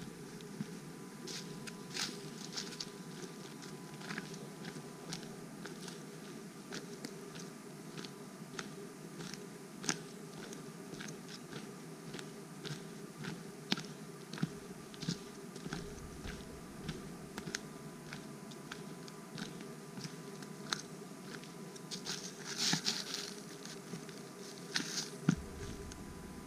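Footsteps on dry fallen leaves and twigs: irregular small clicks and crunches, with a louder cluster near the end, over a steady thin high tone and a faint hiss.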